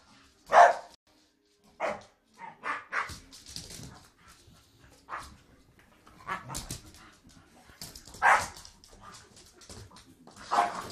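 Staffordshire bull terriers play-fighting, giving short barks in separate bursts every second or two, the loudest about eight seconds in.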